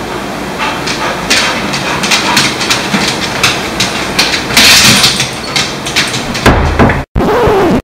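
Irregular knocks and scuffs on a hardwood floor over a steady hiss, with a louder low thump near the end before the sound briefly cuts out.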